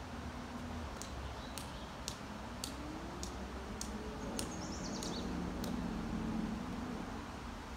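Outdoor background hiss with a sharp high chirp repeating a little under twice a second, which sounds like a bird's repeated call, and a short high trill of falling notes about four seconds in. Underneath, a faint low drone rises in pitch and then holds.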